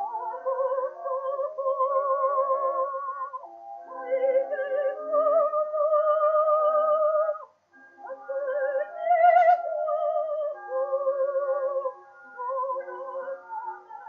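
Contralto voice singing a French romance with orchestra, heard from an acoustic-era 78 rpm gramophone disc of 1908: long held notes with a wide vibrato, sung in phrases broken by short pauses, the loudest and highest note coming a little past the middle. The sound is thin, with almost no treble.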